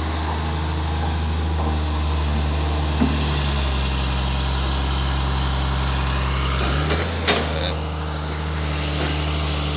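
Diesel engine of a Komatsu hydraulic excavator running steadily as it works, loading sand into a dump truck. The engine note deepens and grows heavier for a few seconds mid-way, and a single sharp knock comes about seven seconds in.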